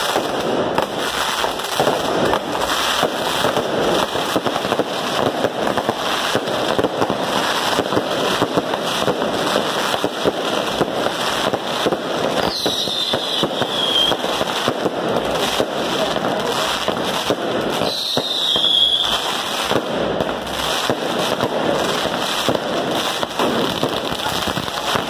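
Firecrackers and fireworks going off at street level in a dense, continuous barrage of cracks and pops. Twice a falling whistle sounds over the barrage, about halfway through and again several seconds later.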